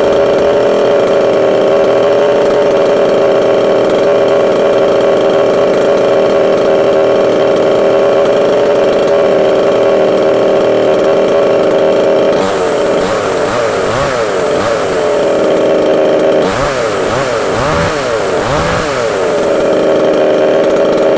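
Woirx 62 cc two-stroke chainsaw running loud and steady at high revs; past the halfway point its pitch dips and rises over and over for several seconds, then settles back to a steady run.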